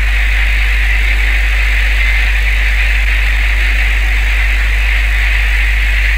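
Fishing boat's engine running steadily: a constant low drone with a steady hiss over it.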